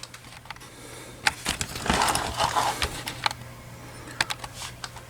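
Scattered light clicks and rattles from an opened Simplex dual-action T-bar fire alarm pull station being handled, with a brief rustle about two seconds in.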